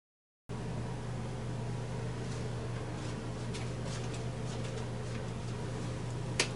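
Steady low room hum with a few faint rustles, and one short sharp click near the end.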